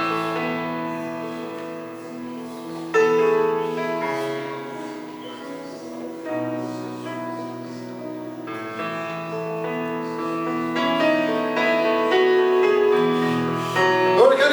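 Slow, soft instrumental background music: sustained chords that change every two to three seconds.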